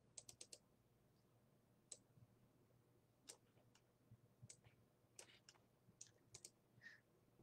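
Near silence broken by faint, irregular small clicks.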